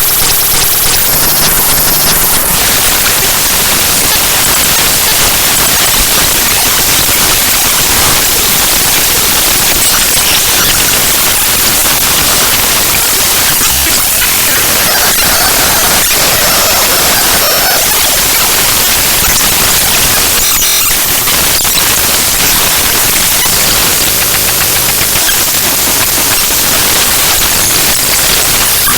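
The raw bytes of the ffmpeg.exe program file played back as audio: dense, loud noise like harsh static, with no pitch or rhythm.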